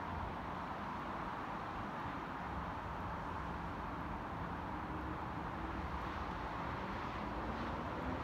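Steady hum of distant road traffic: an even noise of tyres and engines with no single event standing out.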